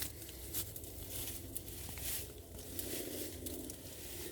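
Scattered soft rustling and crunching of hands digging through mulch and soil to uncover sweet potatoes, in short irregular bursts.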